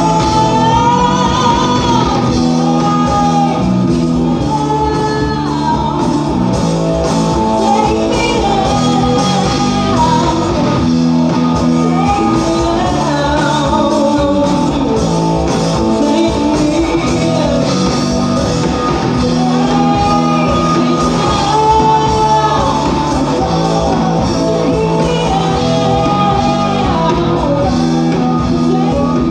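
Live rock band playing: a woman sings lead over electric guitar, bass guitar and a drum kit, heard through the PA in a club room.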